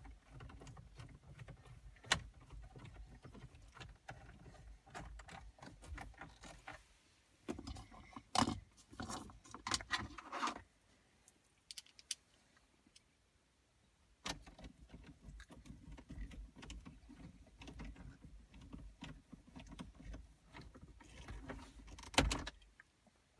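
Small metal clinks, clicks and rattles of a screwdriver and screws being handled while two 7 mm screws are driven back in to secure the dash head unit. A sharp click comes about two seconds in, and there are a few seconds of near quiet about halfway through.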